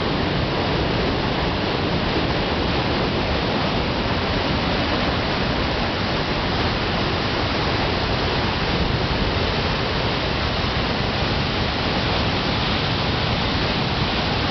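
Waterfall: white water pouring and crashing over rocks, a steady, even rush.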